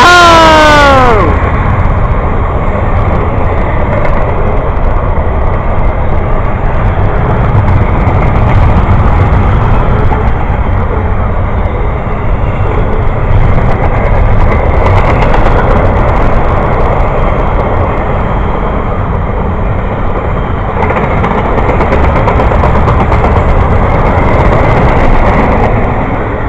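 Train horn sounding as the train passes, its pitch dropping, cutting off about a second in. Then the steady, loud rumble and clatter of the train rolling by.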